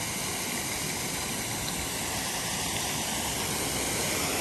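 Small stream pouring over a low stone weir into a pool below: a steady, even rush of falling water.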